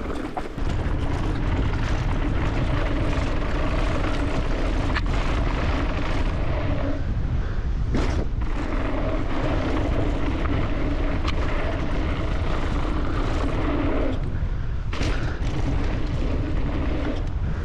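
Evil Insurgent mountain bike descending a dirt trail at speed: wind rumble on the rider-mounted camera and tyre noise, with a steady hum that drops out briefly about halfway through and again near the end, and a few sharp knocks from bumps.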